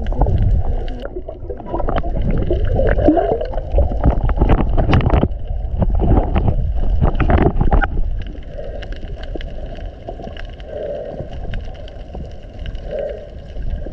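Water sloshing and splashing around a waterproof action camera as it dips beneath the sea surface. After about eight seconds it settles into the muffled sound of being under water, with a faint steady hum and a few bubbling gurgles.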